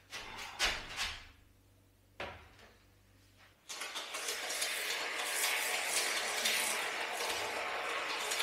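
A few sharp clicks and clinks of hardware being handled in the first second or so and one more knock at about two seconds, then from about three and a half seconds in a steady hiss.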